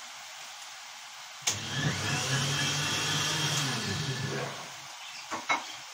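Electric blender (خلاط) running for about three seconds: it starts suddenly, runs steadily, then spins down. Two sharp clicks follow near the end.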